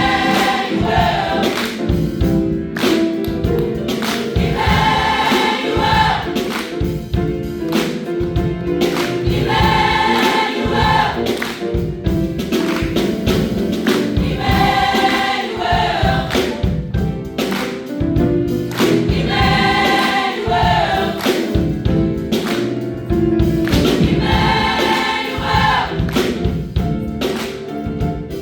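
A choir singing with instrumental accompaniment that keeps a steady beat, the sung phrases returning about every five seconds.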